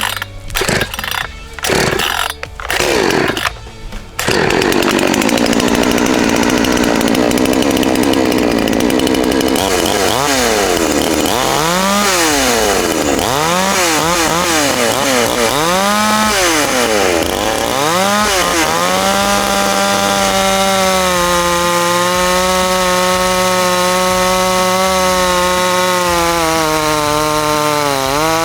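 Cold Pinkway chainsaw engine: a few short bursts in the first four seconds, then it catches and runs continuously. It revs up and down several times, then from about twenty seconds holds a steady high speed, with a brief dip near the end.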